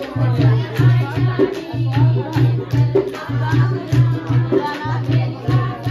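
A song playing loudly: a voice singing a melody over a steady, pulsing low drum beat.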